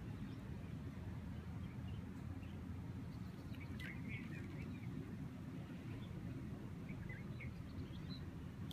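Steady low rumble of breeze on the microphone, with scattered short bird chirps: a cluster about four seconds in and a few more near seven seconds.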